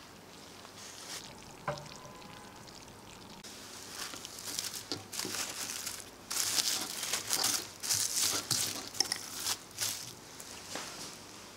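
Plastic cling film crinkling in irregular bursts as it is stretched and smoothed over a bowl, loudest in the second half. A light clink about two seconds in.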